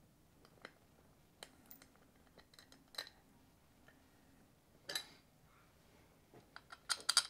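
Faint metallic clicks and small clinks as the last bolts come out of a Braaap ST250 engine's top cover and the cover is lifted off the cylinder head, with a louder run of metal clinks near the end.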